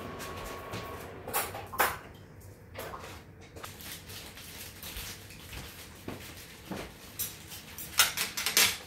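Kitchen dishes and utensils clinking and knocking as soup is served into a bowl: a few scattered knocks, then a quick run of loud clinks near the end.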